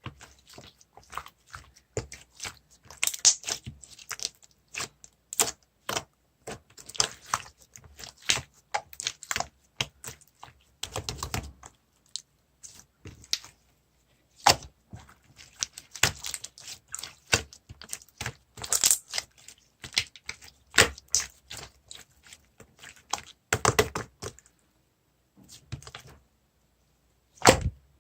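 Hands squeezing, folding and stretching a cloudy clear slime, giving irregular quick wet clicks and pops, with a few short pauses.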